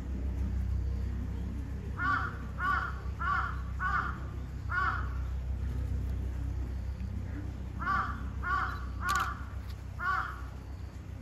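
A bird calling outdoors: a quick run of five short harsh calls about half a second apart, a pause, then four more. A steady low rumble runs underneath.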